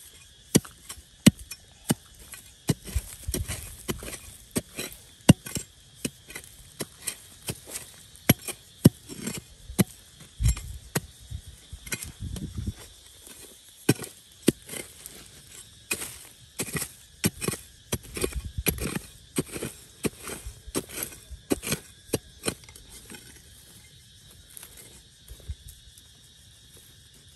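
A long, irregular series of sharp knocks and impacts, one or two a second, over a steady high hiss; the knocks die away a few seconds before the end.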